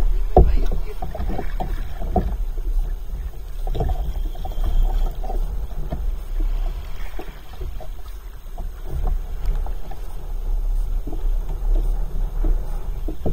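Choppy sea water slapping and knocking irregularly against a plastic kayak's hull, over a steady low rumble.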